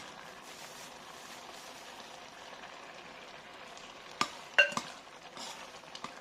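Loquat syrup with rock sugar bubbling and sizzling in a clay pot as it boils down toward a thick paste, stirred so it won't stick. About four seconds in, three sharp clinks against the pot; the middle one is the loudest and rings briefly.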